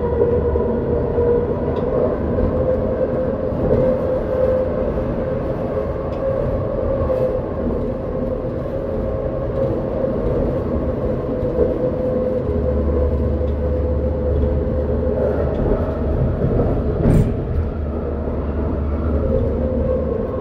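Vancouver SkyTrain Expo Line train running along its elevated guideway, heard from inside the front car: a steady hum with wheel-on-rail rumble. The low rumble grows heavier about two-thirds of the way in, and a single sharp click sounds near the end.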